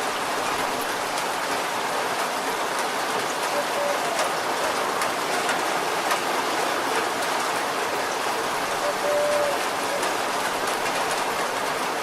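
Steady rain falling on a car's roof and body, an even hiss with individual drops ticking.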